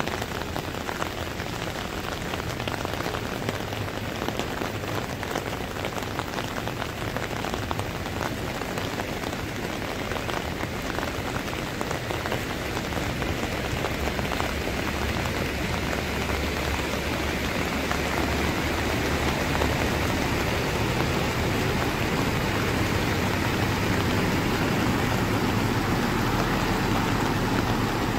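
Heavy rain pouring onto a flooded road: a dense, steady hiss of rain hitting standing water. Through the second half a low rumble grows louder as a heavy lorry approaches through the floodwater.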